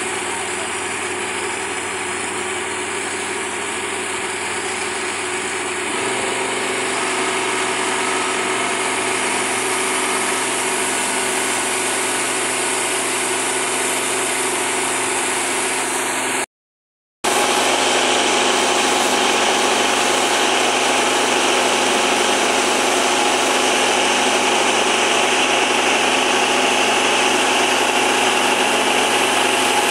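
Rice combine harvester running steadily while its unloading auger pours grain into a trolley, a continuous loud engine and machinery drone that gets louder about six seconds in. The sound cuts out completely for about half a second just past halfway.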